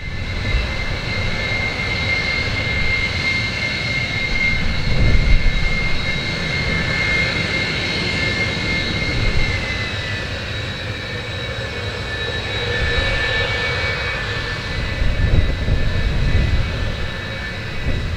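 RF-4 Phantom II's twin General Electric J79 turbojets running at taxi power. A steady high-pitched whine sits over a low rumble, and the rumble swells now and then.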